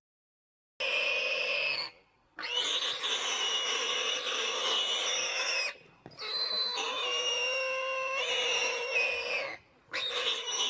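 Warthog squealing in distress while a leopard holds it down: four long, high squeals, starting about a second in, the middle two each over three seconds long, with short breaks between them.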